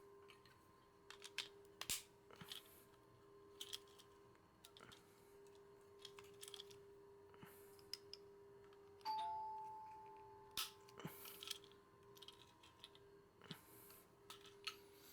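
Faint clicks and taps of small plastic capsule-toy parts being handled and snapped together, over a steady faint hum. About nine seconds in, a single ding rings out and fades over about a second and a half.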